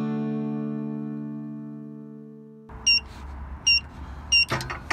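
A strummed guitar chord rings on and fades away. About three seconds in, a gate's metal access-code keypad gives three short high beeps as its keys are pressed, followed by a few clicks.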